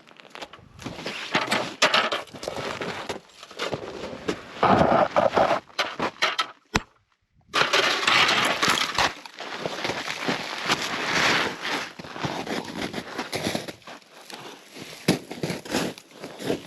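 Irregular crunching and scraping in packed snow, a run of uneven crunches and knocks, broken once by a short silence a little before halfway.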